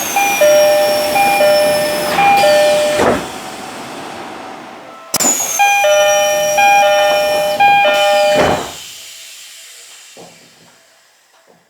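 Tokyo Metro 17000 series door chime playing its repeating high-low ding-dong pattern while the sliding doors move, twice. Each cycle starts with a sudden hiss and a falling whistle and ends with a thump as the doors come to a stop.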